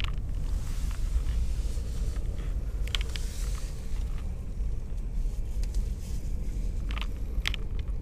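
CSX double-stack intermodal freight train rolling past: a steady low rumble mixed with wind on the microphone, with a few short clicks.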